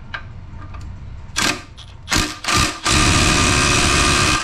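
Impact wrench hammering a bolt loose in a car's engine bay: three short bursts, then a steady run of hammering from about three seconds in, as the bolt backs out.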